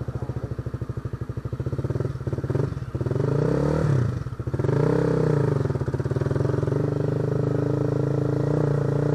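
Honda CBR150R's single-cylinder engine, its exhaust fitted with a silencer, idling, then revved up and down a couple of times as the clutch is let out. About halfway through the bike pulls away and the engine settles into a steady, higher note.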